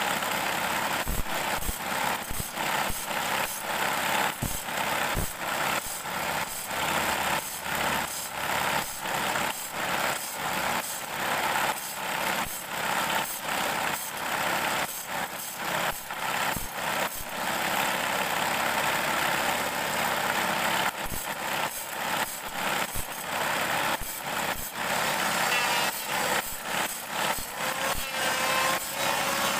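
Electric motor spinning a grinding disc on a homemade table-saw arbor, with a short rasp of metal grinding each time a bandsaw blade tooth is pressed against the disc, one tooth after another in a steady rhythm, as the blade is sharpened.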